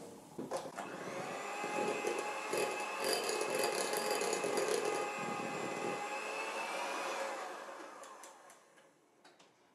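Electric hand mixer running with its beaters in a glass bowl of light cake batter, mixing in the added flour. A steady motor whine that starts under a second in, then slows and dies away near the end.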